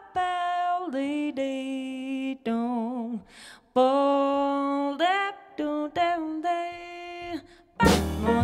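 Female jazz vocalist singing unaccompanied: long held notes, some with vibrato, in short phrases with breaths between. Shortly before the end the drum kit and double bass come in together.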